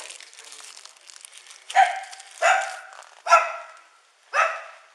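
A dog barking four times, loud sharp barks about a second apart, beginning about two seconds in.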